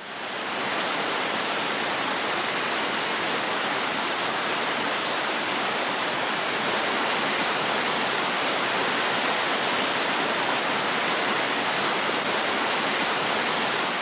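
Bushnell Falls, a waterfall pouring into a pool and cascading over boulders, making a steady, even rush of water. It fades in just after the start and fades out at the end.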